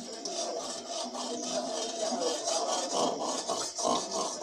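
Metal spatula scraping and stirring against a steel kadai, over a steady hiss of hot oil in which sugar and whole garam masala are frying. The scrapes come louder about three seconds in.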